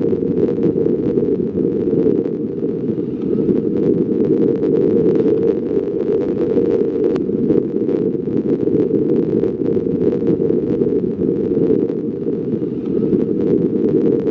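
Wind rushing over a camera microphone on a paraglider in flight: a steady, low rushing noise.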